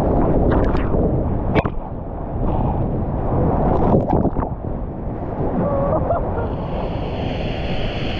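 Whitewater rushing loudly around a kayak on a flooded river, with wind buffeting the camera microphone and a couple of sharp splashes.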